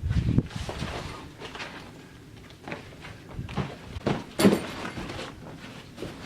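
Climbing shoes and hands scuffing and knocking on rock as a boulderer moves through the start of a problem: irregular short scrapes and bumps, the loudest a sharp scrape a little over four seconds in.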